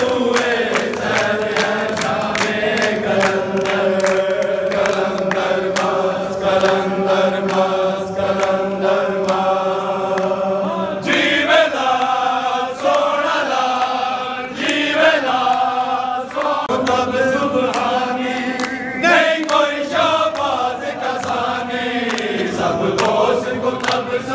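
A man leads a devotional chant in praise of Imam Ali into a microphone, with a crowd of men chanting along. Long notes are held for the first half, then the singing breaks into shorter, shifting phrases. A rhythmic beat runs through much of it.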